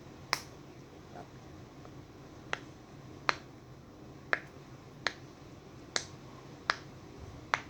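Silicone pop-it fidget toy bubbles being pressed through one at a time: eight sharp little pops spaced roughly a second apart, unevenly.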